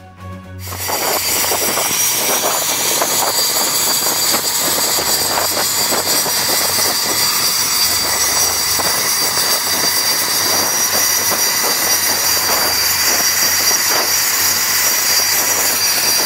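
Jet engine of a T-45 Goshawk trainer running on deck: loud, steady jet noise with a high whine on top, starting about a second in.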